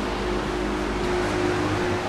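Full-size box fan running off the bridged speaker outputs of a Crown K2 amplifier fed a sine wave instead of mains power: a steady rush of air with a motor hum. The low hum changes pitch near the end.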